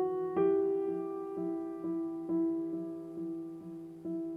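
Slow, soft piano background music: single notes struck about twice a second, each dying away, over a held low note.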